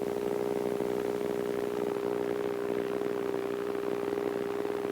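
Steady drone of the KR-2S's Corvair-conversion engine and propeller in cruise, heard through the aircraft's intercom audio feed: a constant hum with one strong held tone.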